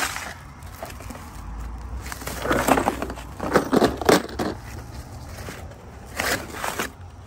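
Plastic packaging bag and clear plastic wrap crinkling and rustling as they are pulled off by hand, in several bursts about two and a half, four and six seconds in.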